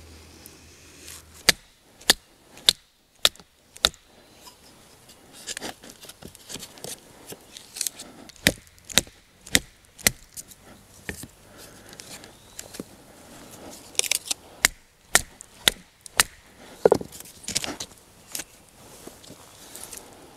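Wood being struck: sharp wooden knocks in several runs of roughly one every half second, with brief scraping sounds between the runs.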